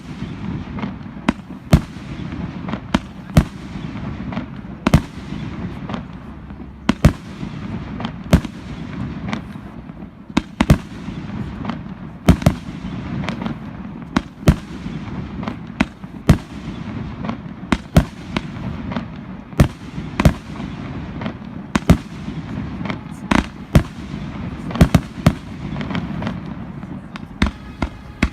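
Fireworks display: aerial shells bursting in a quick, uneven run of sharp bangs, one or two a second, over a steady low rumble.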